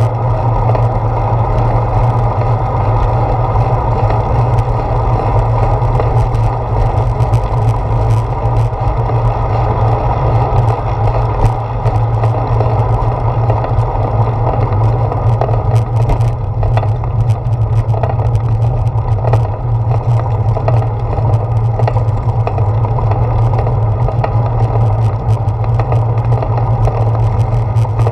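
Steady wind and road noise from a bicycle riding along a paved road, picked up by a handlebar-mounted GoPro Hero 4 in its housing, with a deep steady hum and scattered small knocks and rattles from bumps.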